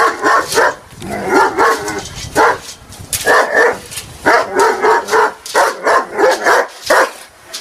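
An aggressive dog barking in rapid, irregular volleys of short barks, several close together at a time.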